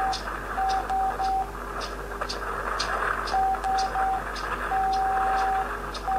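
Morse code beeps: one steady mid-pitched tone keyed in groups of three short beeps and runs of long ones, the rhythm of SOS, over a hiss of radio static with faint crackling ticks.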